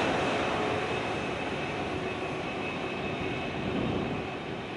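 Electric and diesel-hauled empty ore train running away into the distance, its rumble fading steadily, with a faint steady high whine over it.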